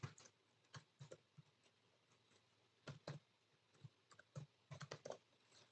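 Faint typing on a computer keyboard: irregular short keystroke clicks, some singly and some in quick little runs.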